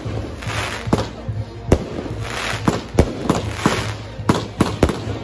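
Fireworks going off in an irregular string of sharp bangs, about ten in a few seconds, with bursts of hissing between them.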